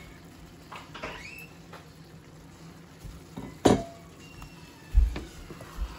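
Kitchen handling sounds: fried chicken pieces sliding out of a ceramic bowl into a pot of rice, then a few sharp knocks and clinks. The loudest, a little over three and a half seconds in, rings briefly like the emptied ceramic bowl being set down, followed by a duller thump about five seconds in.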